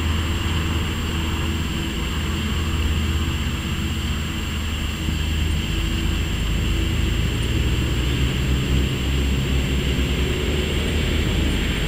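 Wind buffeting the microphone: a steady low rumble that turns more uneven and gusty from about eight seconds in.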